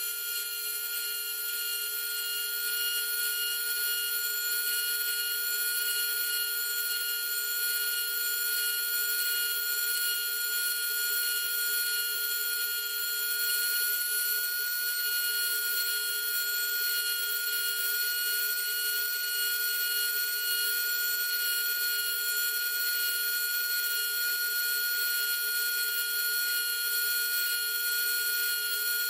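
Small high-speed power drill running steadily with a constant whine, drilling out small window openings in a scale model.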